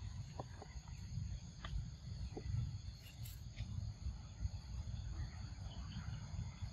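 Macaques giving a few faint, short squeaks in the first two and a half seconds, over a steady low rumble.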